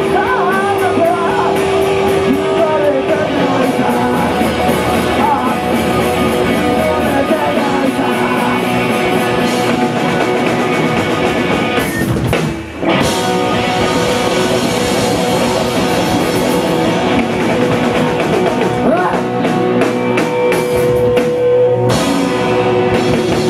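Rock band playing: drum kit, electric guitar and bass, with a sung vocal line in the first few seconds. The band cuts out for a moment about halfway through, then comes straight back in.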